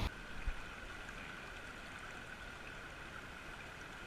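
River water running steadily over the riverbed, an even rush with a faint thin steady tone above it; a small knock about half a second in.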